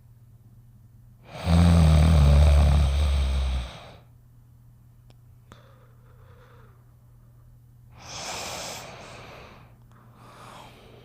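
Snoring: one loud, deep snore starting about a second and a half in and lasting over two seconds, then a softer, airy breath about eight seconds in. A low steady hum lies underneath.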